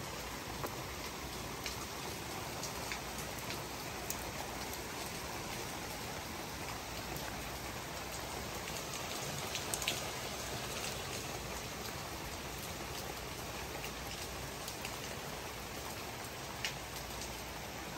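Steady rain falling, with now and then a sharp tap of a drop striking something close by.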